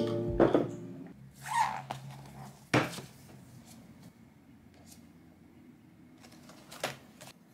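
Background music ends about a second in. It is followed by a short rustle, one sharp click or knock near the three-second mark, and two lighter clicks near the end, the sounds of small objects being handled in a quiet room.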